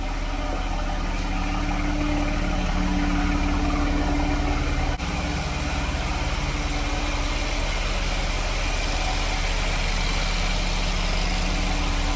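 Car engine idling steadily during a jump start, with a brief click about five seconds in, after which the engine's hum shifts slightly.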